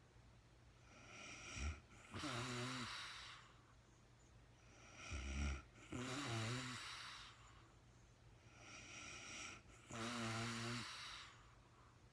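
A woman snoring in her sleep: three louder snoring breaths with a vibrating tone, about four seconds apart, with softer breaths between them and a short snort about five seconds in.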